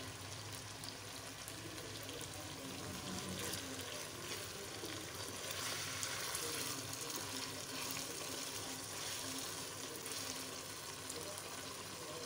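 Chicken karahi masala gravy sizzling and bubbling in oil in a non-stick wok on the heat, a steady crackly fry, with the pieces being stirred.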